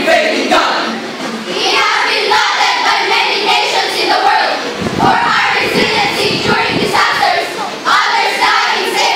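A school speech choir of young voices chanting and reciting together in unison, loud and echoing in the hall.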